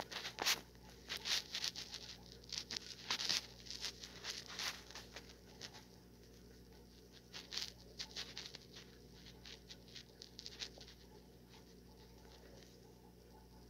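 Soft, irregular crackling and clicking of a small box and its packaging being handled, dying away about eleven seconds in.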